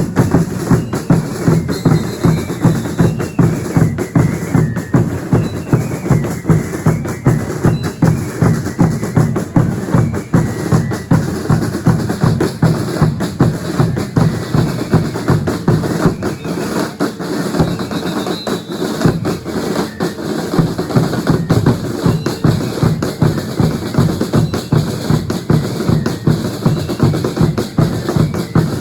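Drums of a religious dance troupe beating a steady, fast, even rhythm, with deep bass-drum strokes.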